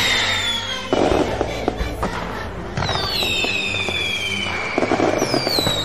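Fireworks sound effect: whistling rockets that fall in pitch, with crackling bursts about a second in and again near the end, over background music.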